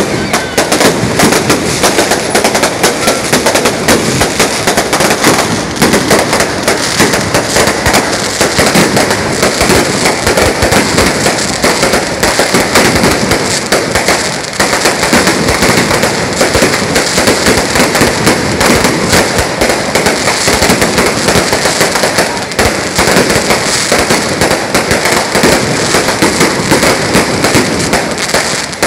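Strings of firecrackers going off without pause: a loud, dense crackle of rapid bangs with a few brief lulls.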